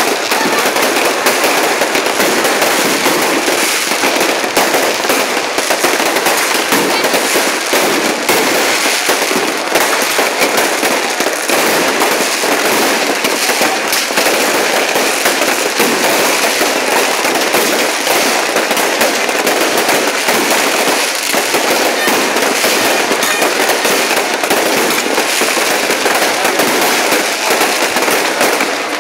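Many fireworks and firecrackers going off at once: a continuous, dense crackling and popping with no pauses, loud throughout.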